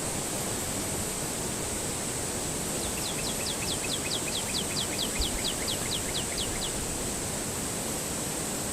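Steady rushing water of a river, with a small bird's trill in the middle: a run of quick falling notes, about four or five a second, lasting nearly four seconds.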